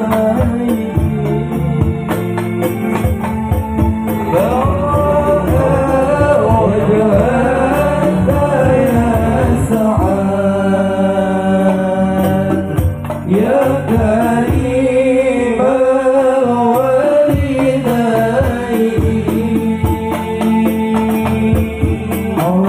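Music: a singer's voice gliding through long, ornamented phrases over a steady accompaniment, the voice coming in about four seconds in.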